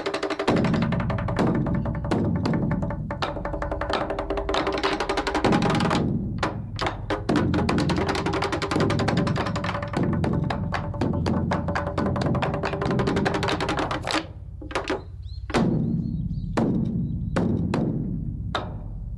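Rapid, dense struck percussion over sustained ringing tones. The strikes thin out to separate hits with ringing decay near the end.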